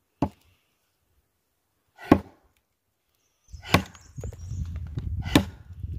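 Axe chopping into a log to split firewood: four sharp blows, spaced roughly a second and a half to two seconds apart.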